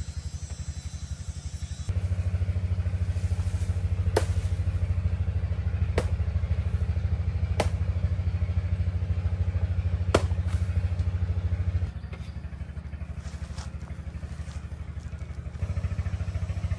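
A small engine running steadily with an even low pulse. Four sharp knocks a couple of seconds apart sound over it.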